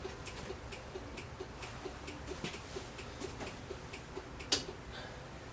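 Turn-signal flasher clicking steadily, about two clicks a second, while the converted side light's double-filament bulb is powered for a flashing test; one click about four and a half seconds in stands out louder.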